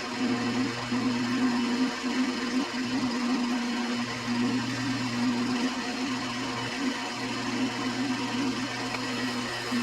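Drill press running steadily while a bit bores into a blank of high-density polyethylene (HDPE): a constant motor hum with small dips and swells in level.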